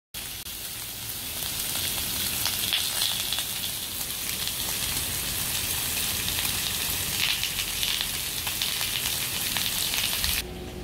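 Pork belly slices sizzling on a hot stone-coated grill pan, a steady frying hiss full of small crackles and spits. It cuts off suddenly near the end.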